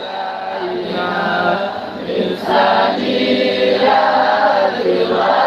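A group of voices singing an Arabic devotional song (sholawat) together in long held notes, over a steady low note, with no percussion.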